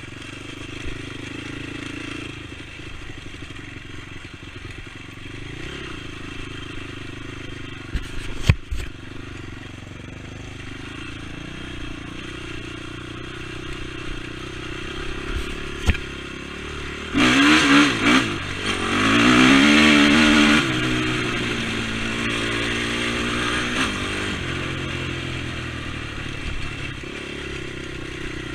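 ATV engine running under way with clatter and knocks, including two sharp knocks, one near the first third and one about midway. Just past halfway the engine revs hard for a few seconds, its pitch climbing and falling, then drops back to steady running.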